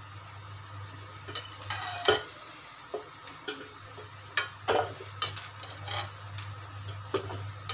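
A metal spoon scooping blanched cauliflower out of hot water in a metal pan, clinking and scraping against the pan's side about nine times at an uneven pace. A steady low hum runs underneath.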